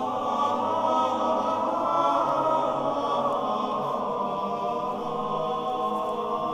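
Choral music: a choir chanting long, sustained notes.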